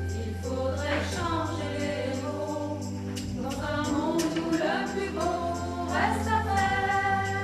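Women's vocal ensemble singing a song in several parts, with voices gliding between notes over a steady low note that drops out briefly twice.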